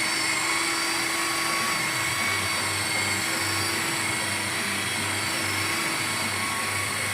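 A power tool running steadily: a constant whine over a hiss.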